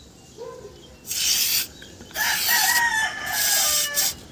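Aerosol silicone spray hissing in two bursts, a short one about a second in and a longer one after it, as it lubricates the rubber channel of a sticking power window. A rooster crows during the second burst, its call falling in pitch at the end.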